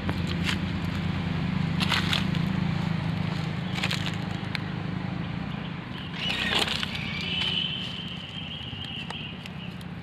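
Cloth rustling and crackling over a steady low hum. About six seconds in, a sharp squawk sweeps down in pitch, then a thin, high, steady call lasts about two seconds: calls of parrot chicks bundled in the cloth.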